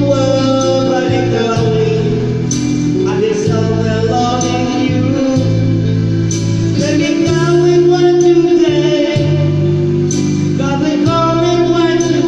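Music with a man singing over guitar and bass accompaniment.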